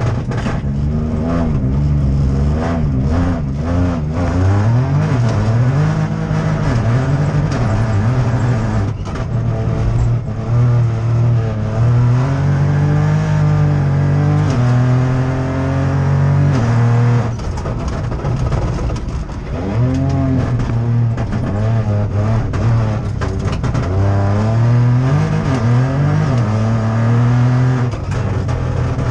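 Opel Corsa Rally4's 1.2-litre turbocharged three-cylinder engine heard from inside the cockpit, driven flat out: the revs climb and fall back again and again through sequential gear changes. There are brief lifts off the throttle, the longest a little past halfway.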